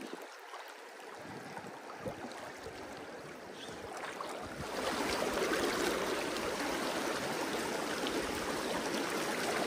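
Rushing water of a rocky trout creek, a steady hiss that gets louder about halfway through.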